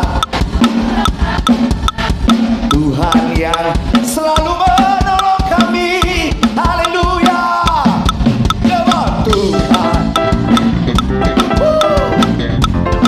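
Live praise-band music with a drum kit keeping a busy, steady beat, and a lead melody sliding over it in the middle.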